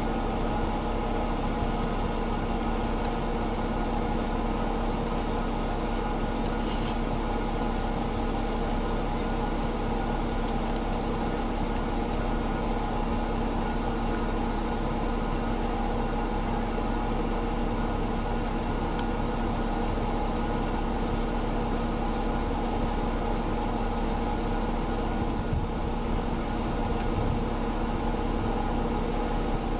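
A steady mechanical hum at one constant pitch, engine- or motor-like, with a few faint brief high sounds about seven and fourteen seconds in.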